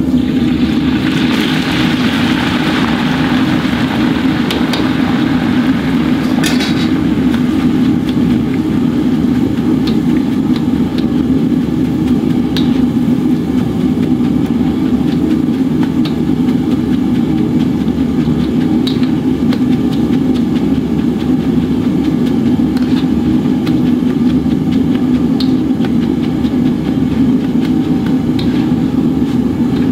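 Gas wok burner running loud and steady under a wok of hot oil where rice is being deep-fried into crispy rice. A burst of sizzling in the first few seconds, then scattered clinks of the metal ladle and strainer against the wok.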